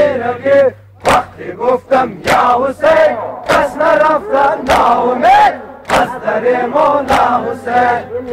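A crowd of men chanting a Hazaragi Persian noha (Shia mourning lament) together, with a sharp slap about every second and a bit from many hands striking chests in unison (matam).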